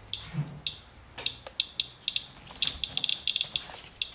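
Radalert Inspector Geiger counter chirping once for each radiation count. The chirps are sparse at first and come faster and denser toward the end as it is held over a rain-wipe sample reading many times background. There is a soft handling bump near the start.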